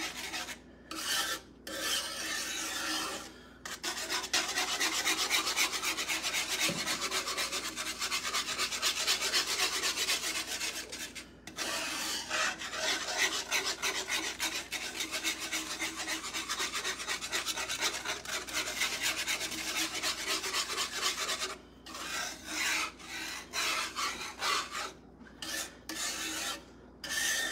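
Wire whisk scraping rapidly around a cast-iron skillet, stirring thick milk gravy and breaking up roux lumps as it thickens. The stirring stops briefly a few times, more often near the end.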